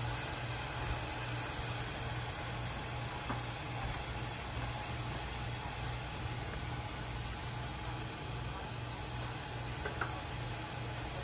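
Chicken pieces sizzling steadily in a nonstick pan over a low, steady hum.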